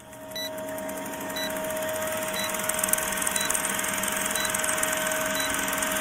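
Film-projector countdown sound effect: a steady whirring rattle over a hum, with a short tick about once a second, fading in over the first second.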